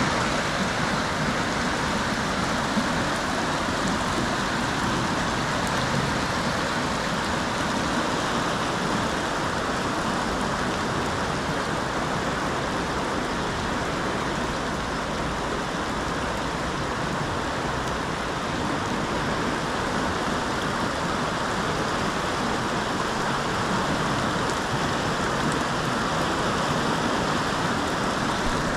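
Steady rushing noise of fast-flowing floodwater, swollen by heavy rain, running through trees and over flooded ground.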